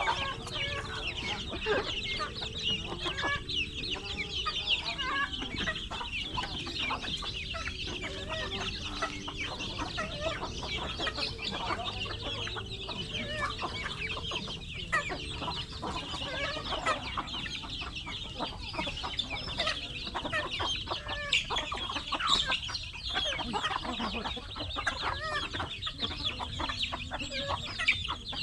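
A large flock of chickens clucking and calling all at once, a dense unbroken chatter of many overlapping calls.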